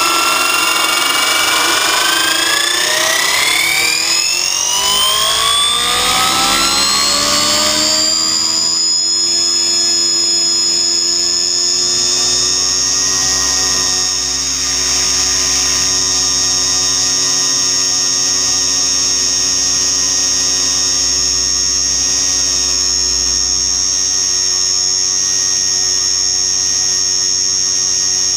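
Radio-controlled helicopter's motor and rotor spooling up: a loud whine of several tones rising in pitch over the first eight seconds or so, then holding steady at flying speed.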